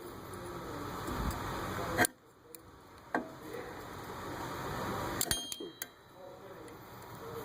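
A few sharp metallic clicks and a short ringing clink of steel tools against the brake caliper as a piston wind-back tool is fitted and turned to push the rear caliper piston back.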